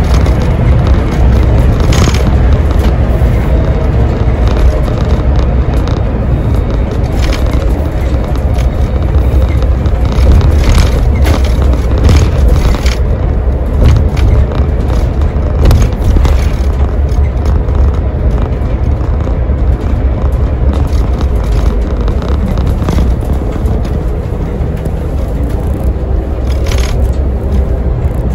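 Cabin noise of an Iveco Crossway Line bus at road speed: a heavy, steady low rumble from its Iveco Cursor diesel engine and the road, with a faint whine over it. Scattered clicks and rattles from the cab's fittings come through it.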